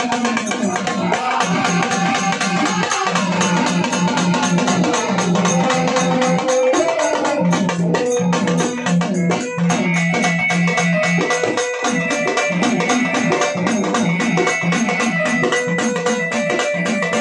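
Instrumental folk music: rapid, dense strokes on a dimdi frame drum under held melodic notes, with a sustained low drone and a higher melody line that continue without a break.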